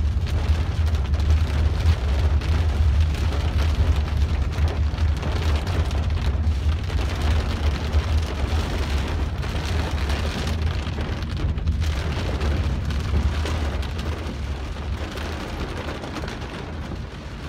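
Heavy rain pelting the roof and windshield of a car, over a steady deep rumble from the car on the road, growing a little quieter near the end.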